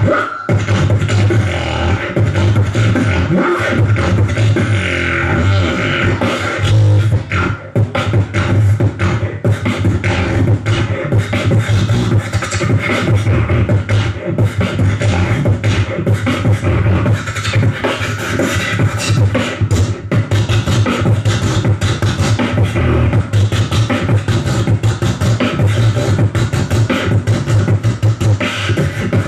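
Live human beatboxing into a handheld microphone: a continuous, fast rhythm of mouth-made drum strokes over a heavy bass line, with a brief break about seven and a half seconds in.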